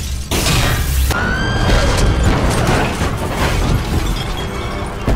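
Action-film sound effects: a loud crash or blast about a third of a second in, then further crashing and low rumbling with a short high whine, over dramatic score music.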